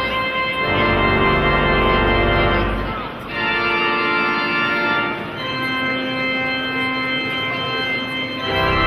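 Pipe organ playing slow, sustained chords, the deep pedal bass dropping out about three seconds in and coming back near the end.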